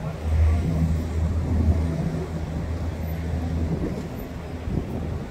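A fire truck's diesel engine idling as a steady low hum over passing road traffic, the hum fading about three and a half seconds in.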